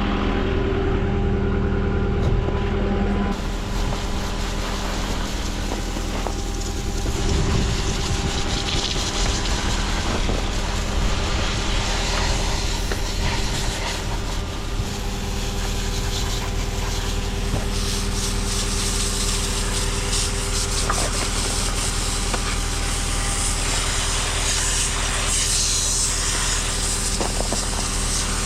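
Hot water from a hose spraying and hissing as salt is rinsed off snow-plowing equipment, starting about three seconds in. Under it runs a steady engine hum, typical of a truck idling.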